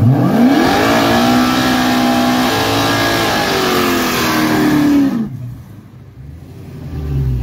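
Two Dodge muscle cars' V8 engines revving up hard and holding high revs through side-by-side burnouts, with the hiss of spinning rear tyres under the engine note. The pitch climbs in the first second, sags slightly before the sound cuts off abruptly about five seconds in, and a low engine idle returns near the end.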